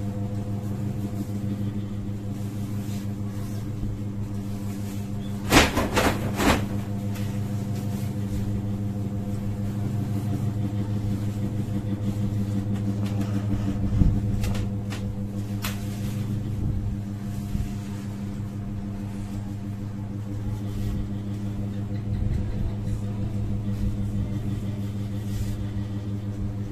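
Steady electrical hum, with a cluster of sharp clicks and knocks about six seconds in and single ones near fourteen and sixteen seconds.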